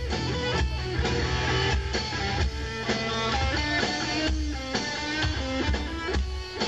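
Instrumental music with guitar playing, strummed with a steady beat and bass, no singing.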